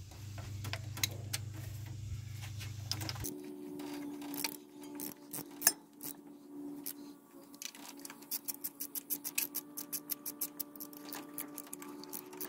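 Hand ratchet clicking as it tightens the thermostat housing bolts: scattered clicks and light metal knocks at first, then a fast even run of about six or seven clicks a second in the last few seconds.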